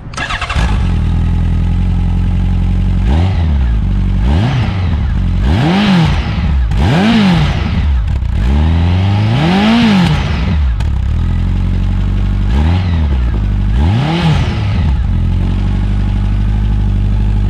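Honda CB1300 Super Four's inline four-cylinder engine idling through its stock silencer, blipped about seven times with quick rises and falls in revs, one longer rev near the middle. The sound is deep and smooth.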